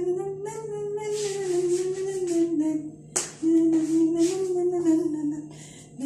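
A voice humming a tune in long, wavering held notes over a rhythmic hissing beat, with one sharp smack about three seconds in.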